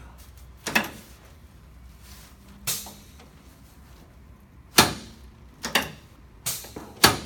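Chiropractic treatment table knocking as the patient turns over onto his back on it: six sharp knocks at uneven intervals, coming closer together in the second half.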